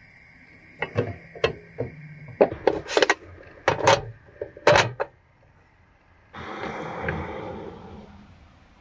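A run of sharp metal knocks and clicks as a sandwich toaster is loaded with bread, clamped shut and set on a gas hob, then a rolling scrape of about two seconds, fading away, as the van's sliding side door is opened.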